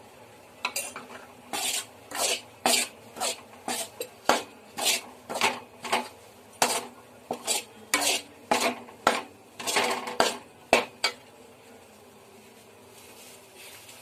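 Long metal slotted spoon scraping and knocking against a kadai, about two strokes a second, while stirring dry grated coconut and condensed milk on low heat for burfi. The strokes stop a few seconds before the end.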